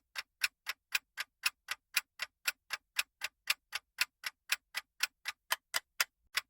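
Clock-ticking sound effect of a countdown timer, short sharp ticks at about four a second, marking the guessing time before the answer is revealed.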